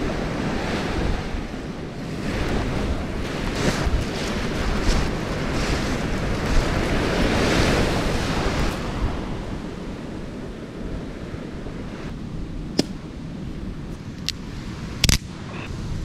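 Wind buffeting the microphone over surf breaking on the shore, a loud rushing that eases after about nine seconds. A few sharp knocks come in the last few seconds, the loudest about a second before the end.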